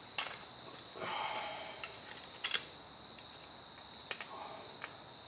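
Hand tools clicking and clinking while snap-ring pliers are brought in to fit the snap ring on a new lower ball joint: about half a dozen short, sharp clicks, with a brief scrape about a second in. A steady high-pitched tone sounds underneath.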